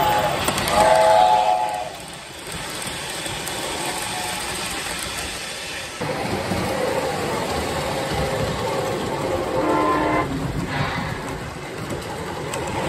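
Lionel O-gauge model steam locomotive sounding its chord whistle for the first two seconds, then the steady rumble and clatter of the model train's wheels on the track. About ten seconds in, a short horn blast sounds from the second, approaching train, and the wheel rumble grows louder near the end.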